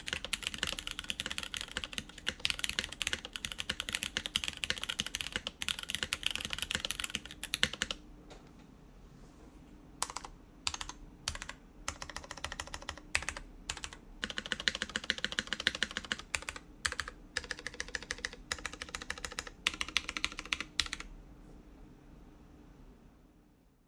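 Mechanical keyboard being typed on: a BeatLab Solar80 with lubed Cherry MX Brown switches in an aluminum plate and GMK keycaps. A fast run of keystrokes lasts about eight seconds, then a lull with scattered single keystrokes, then another fast run that stops about three seconds before the end.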